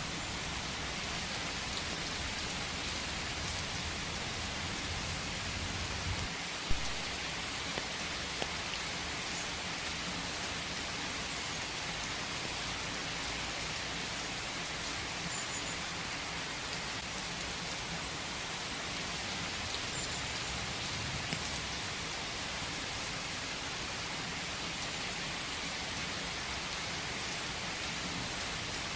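Steady rain falling in a forest: an even hiss with scattered sharp drops, one louder drop about seven seconds in.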